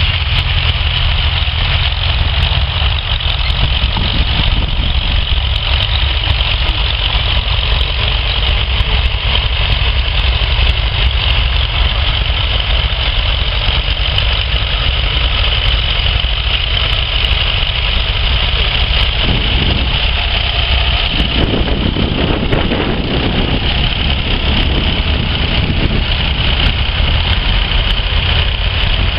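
Vintage tractor engine running steadily, a continuous low rumble.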